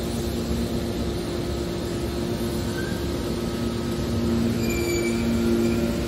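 Hydraulic power unit of a scrap metal baler running: a steady mechanical hum with a droning whine, with a few brief high squeaks in the second half.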